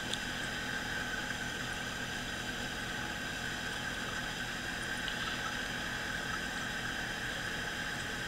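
Steady background hiss with a faint, constant high whine, and no growling or yapping from the puppy standing out.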